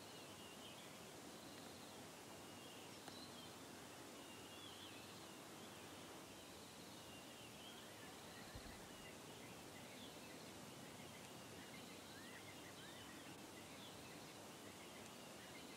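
Faint birdsong: scattered short chirps and twitters over a quiet outdoor hiss, close to silence.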